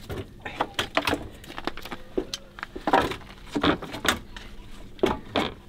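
Irregular metallic clicks and knocks of a battery terminal clamp and hand tools being handled and fitted on a tractor battery's terminals.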